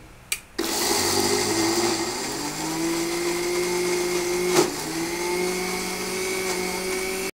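Electric mixer grinder motor starting with a click about half a second in, winding up in pitch over the first couple of seconds, then running steady while grinding soaked urad dal into a thick paste without water. There is a single knock about four and a half seconds in.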